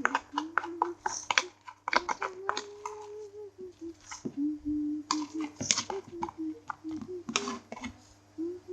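Sticky homemade glitter slime being kneaded and pulled by hand, giving many quick wet clicks and pops, while someone hums a wavering tune.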